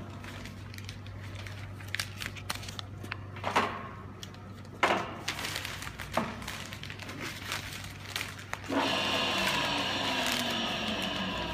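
Fosdick radial drilling machine running with a steady low hum, with scattered sharp clicks and knocks. About nine seconds in the machine gets louder, with a falling tone, as the spindle is run at a higher speed.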